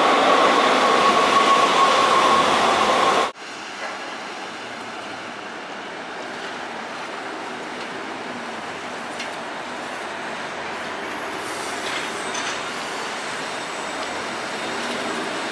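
A Muni Metro light-rail car rumbling into an underground station, its wheels squealing in a steady high tone that fades. About three seconds in it cuts off suddenly to quieter, steady street traffic noise as a city bus moves through an intersection.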